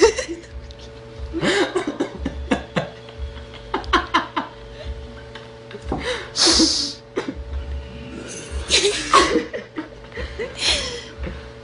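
People laughing in short bursts, about five times, with breathy gasps between.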